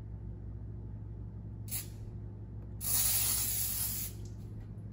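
PAM aerosol cooking spray hissing from the can into a glass baking dish to grease it: a short burst a little under two seconds in, then a louder spray lasting over a second.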